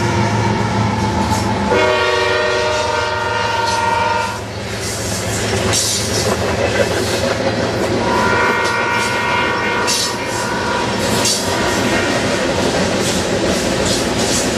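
Diesel freight locomotive's multi-chime horn sounding two long blasts, the first about two and a half seconds long and the second about two seconds, over the steady rumble and wheel clatter of a CSX freight train passing.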